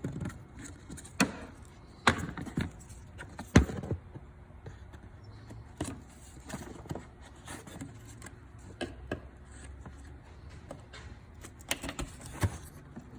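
Plastic push-pin retainer clips on a Ford F-150's upper radiator sight shield being pried up with a plastic trim panel tool: a series of sharp clicks and snaps at irregular intervals, the loudest about three and a half seconds in.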